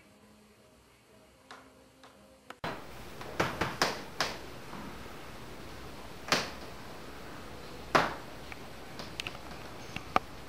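Irregular sharp clicks and knocks over a steady room hiss: a quick cluster of four a little over three seconds in, then single knocks every second or two. The hiss starts abruptly about two and a half seconds in.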